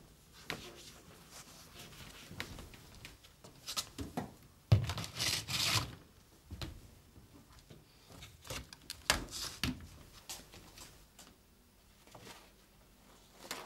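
Household handling noises in a kitchen: scattered knocks and rustles, with a sharp thump about five seconds in followed by a second of clatter, and another burst of knocks around nine seconds, as a front-loading washing machine's door and a plastic laundry basket are handled.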